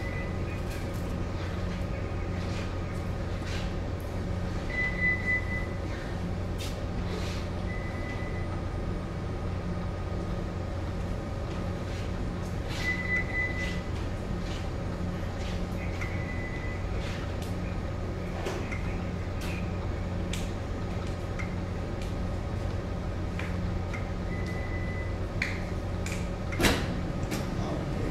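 Steady low hum of a ship's machinery and ventilation, heard on the bridge. A few short high beeps and scattered clicks come through it, with one sharper knock near the end.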